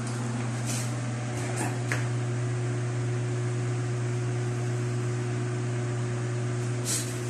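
Steady low mechanical hum with an even hiss, like a running fan or other appliance, with a few faint clicks about a second in and near the end.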